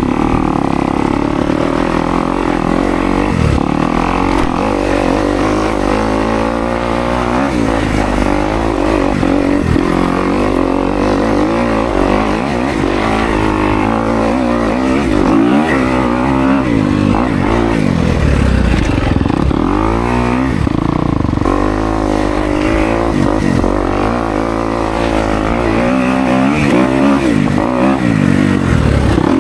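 Kawasaki KX250X two-stroke dirt bike engine being ridden hard, its revs climbing and dropping every second or two without a break.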